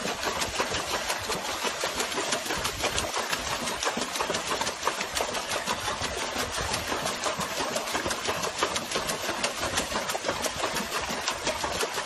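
A dog paddling its front paws fast in a plastic tub of water, a rapid, steady run of splashes.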